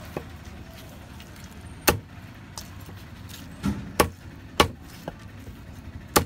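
A heavy fish-cutting knife chopping trevally pieces on a wooden chopping block: four sharp chops spaced irregularly, with a few lighter knocks between, over a steady low rumble.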